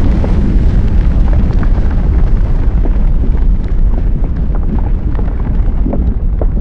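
Volcanic eruption sound effect: a loud, continuous deep rumble with many scattered crackles and pops, its higher hiss slowly fading.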